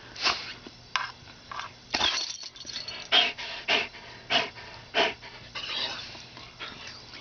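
Greyhound panting hard with its mouth open, a breathy huff every half second to second, winded from running.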